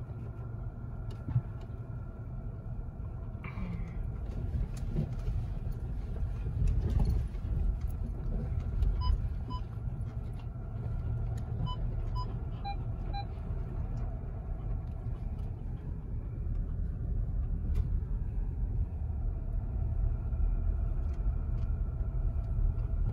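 Car driving slowly over a rough dirt track, heard from inside the cabin: a steady low rumble of engine and tyres, with a few faint knocks early on.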